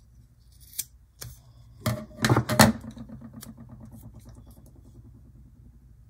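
Strong double-sided tape being cut with scissors and handled: two sharp snips about a second in, then a loud rasping burst of tape around two seconds in, fading into faint crackling as the piece is peeled and worked in the fingers.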